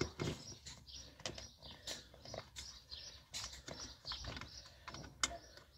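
Scattered light clicks and knocks of a 10 mm wrench and loosened parts as the pickup's gas pedal is unbolted, with small birds chirping over and over in the background.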